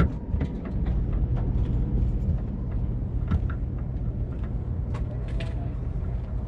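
Steady low rumble of vehicle engines idling, with scattered light ticks and taps.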